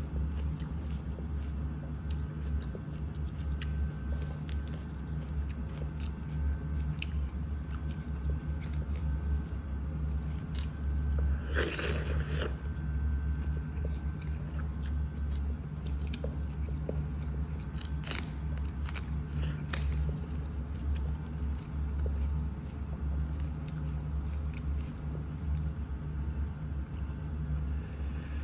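A person eating close to the microphone: scattered crunchy bites and chewing, with one louder crunch about twelve seconds in, over a steady low hum.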